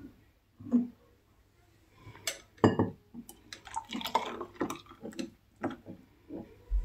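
A glass bowl knocking and clinking against drinking glasses while a thick blended Oreo and milk mixture is poured into them, with soft pouring and dripping. About a dozen separate knocks, the loudest about a third of the way in.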